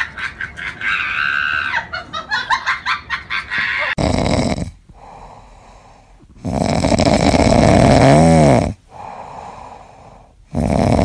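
A sleeping orange tabby cat snoring, with long, loud snores about every three seconds and quieter breaths between them. This starts about four seconds in, after a few seconds of a rapid pulsing sound.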